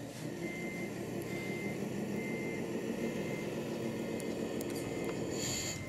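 Sound module of a scale RC MAN truck playing a steady diesel engine drone with a reversing beeper sounding about once a second. A short hiss comes near the end.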